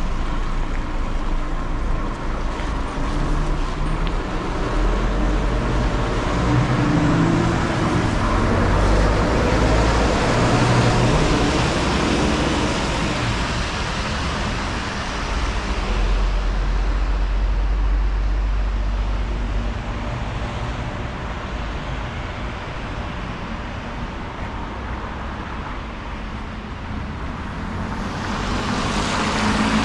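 City street traffic: cars and other motor vehicles passing, a continuous rumble of engines and tyres that grows louder and fades as vehicles go by, quietest a little past the middle and rising again near the end.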